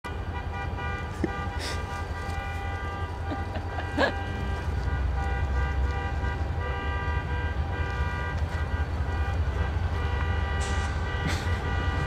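A horn held in one long, steady multi-tone chord, over the low rumble of approaching diesel freight locomotives.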